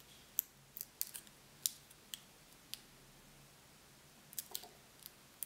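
Faint, crisp ticks and crackles of small paper and card pieces handled in the fingers, about a dozen spread irregularly with a small cluster near the end.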